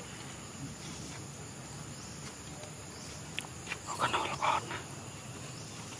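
Steady outdoor background hiss, broken about four seconds in by a short burst of animal calls.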